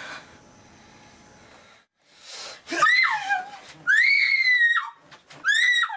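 A person screaming in terror: three high-pitched screams in quick succession starting about halfway through, the first falling away in pitch at its end, the second the longest, after a short breathy gasp. These are a victim's screams as the killer attacks.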